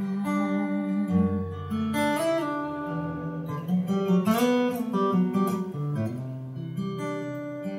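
Acoustic guitar strummed with a pick, its chords ringing out in an instrumental passage without singing.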